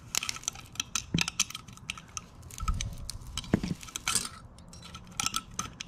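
Steel feeler gauge blades clinking and scraping as a blade is slid under a camshaft lobe to check intake valve clearance on a Yamaha YZ450F cylinder head. Irregular light metallic clicks, with a dull bump about halfway.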